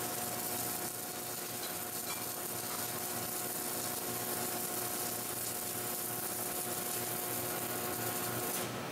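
Automatic submerged-arc welder running a circumferential seam on a rotating steel LPG cylinder: a steady hiss and sizzle over a steady machine hum. The hum drops out near the end.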